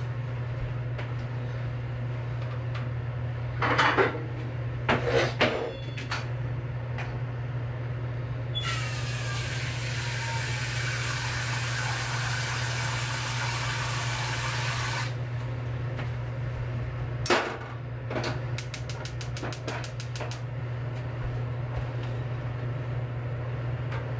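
Kitchen sounds under a steady low hum: a few knocks of cookware, then water running for about six seconds. Near the end a saucepan is set down on the gas hob's grate and the burner's igniter clicks rapidly for about a second and a half as the gas lights.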